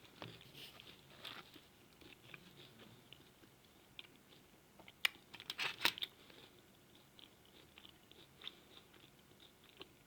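A person chewing grilled liver close to the microphone: soft wet mouth clicks and smacks, with a brief cluster of louder, sharper clicks about five seconds in.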